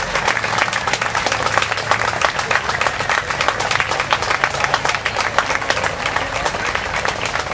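A street crowd clapping and applauding steadily, with voices mixed in.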